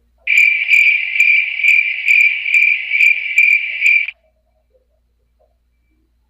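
Stock 'awkward cricket' sound effect: a cricket chirping in an even, high-pitched pulse about two to three times a second for roughly four seconds, then cutting off abruptly.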